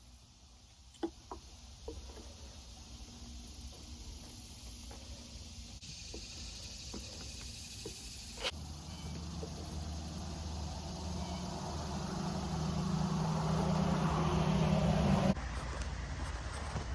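A few light knocks and clicks, then a low motor hum that grows steadily louder for several seconds and cuts off abruptly near the end.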